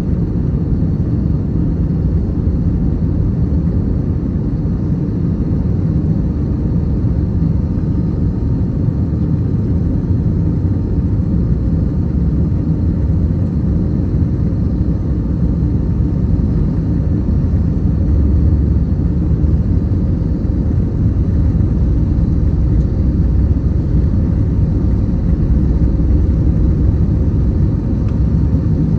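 Airbus A321's twin jet engines at takeoff thrust, heard from inside the cabin as a loud, steady rumble.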